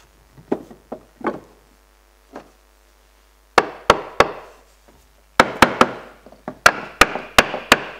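Hammer tapping a new timber quarter knee up into place against a wooden boat's transom, driving it home as a tap fit. A few soft knocks come first, then sharp taps: three in quick succession about three and a half seconds in, and a rapid run of about ten near the end.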